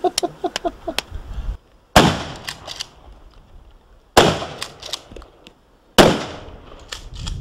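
Three gunshots on a target range, about two seconds apart, each followed by a short echo.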